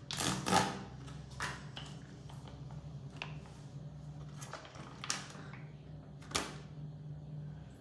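Crinkling and rustling of a foil sheet-mask sachet being handled and turned over, in irregular crackles, the loudest about half a second in and again near six and a half seconds. A steady low hum runs underneath.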